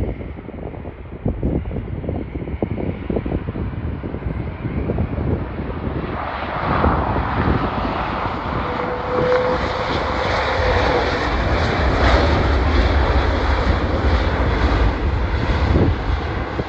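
Twin-engine widebody jet airliner's engines running, at first distant and mixed with gusty wind on the microphone. About six seconds in the jet noise becomes much louder and fuller as the airliner rolls along the runway close by, then holds steady and loud.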